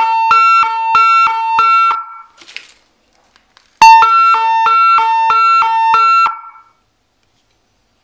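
Boom Blasters wireless European police siren car horn sounding its two-tone hi-lo siren, switching between two pitches about three times a second with a slight click at each change. It sounds in two bursts, ending about two seconds in and starting again about four seconds in for another two and a half seconds.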